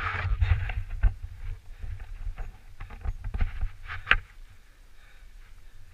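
Mountain bike rolling along a dirt trail: a low rumble from the tyres and wind on the camera, with scattered rattles and knocks from the bike over bumps, the sharpest about four seconds in.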